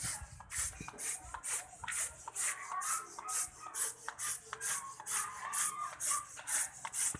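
Hand sanding with sandpaper: quick, even back-and-forth scraping strokes, about two to three a second.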